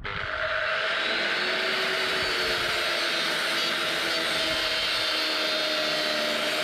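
A motor starts abruptly and runs steadily at one speed, a loud whirring hum with a steady whine on top.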